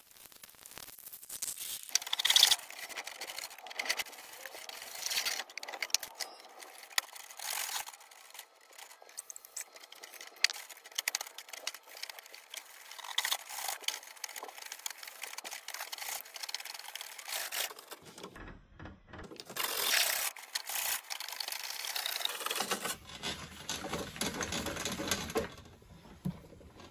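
Hand-cranked Kobalt auto-feed drum snake turning its steel cable down a clogged kitchen sink drain: irregular scraping and rattling clicks as the cable works against the clog.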